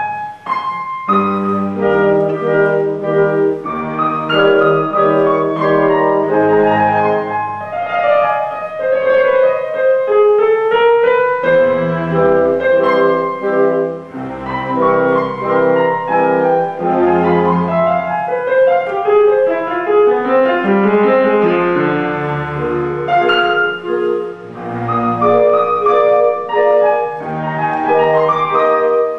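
Instrumental background music: a classical-style piece led by piano with woodwind, flowing melodic lines over sustained chords.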